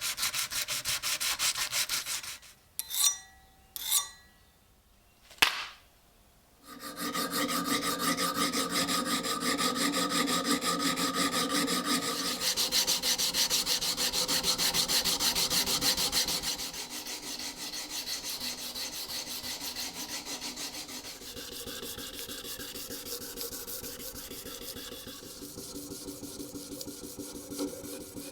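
Abrasive sanding or filing on the pocket knife's parts: a fast, steady scratching. It stops about two seconds in, with three sharp knocks during the pause. About seven seconds in it starts again, changing in tone several times and growing quieter in the second half.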